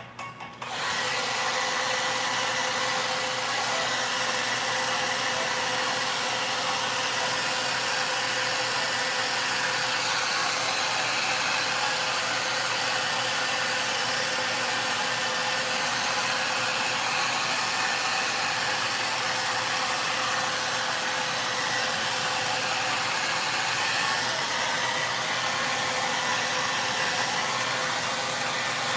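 VONE hair dryer switching on under a second in and then running steadily, a constant rush of air with a faint steady whine.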